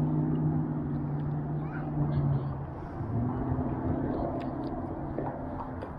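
A low, steady mechanical hum holding one pitch, which breaks off about two and a half seconds in and resumes slightly lower.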